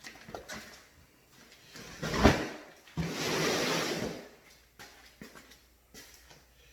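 Handling noise from unpacking a photo booth: a sharp knock a little over two seconds in, then about a second of scraping or sliding, with scattered small clicks.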